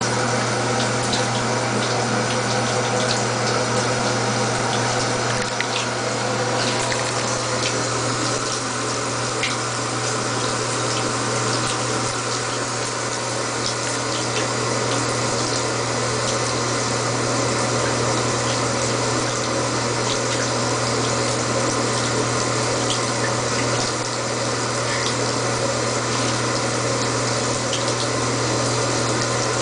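Bathtub faucet running: a steady stream of water pouring from the tub spout into the bathwater, with a steady low hum underneath.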